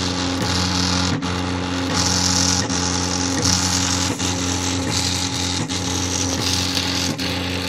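Stepper motors of a homemade pen-plotting machine running with a steady whine, broken by brief stops every half second to a second, with a hiss that swells and fades.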